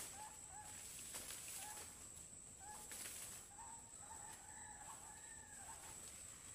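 Faint, distant domestic chicken calls: short paired notes several times, then a rooster crow of about two seconds in the middle, over a steady high whine.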